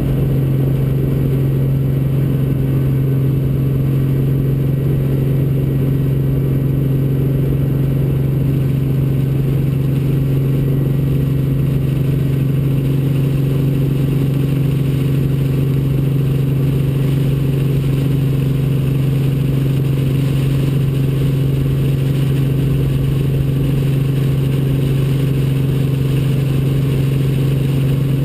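Robinson R44 Raven II helicopter heard from inside the cabin as it lifts off and climbs: its Lycoming six-cylinder piston engine and rotor system give a loud, unbroken drone with a strong low hum.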